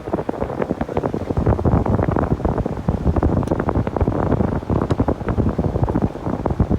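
Wind buffeting the microphone: a loud, gusty, fluttering rumble that never settles.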